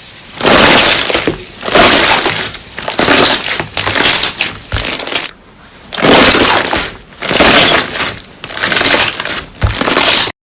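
Crunchy slime being squeezed and pressed by hand, crackling and crunching in repeated loud bursts about a second apart.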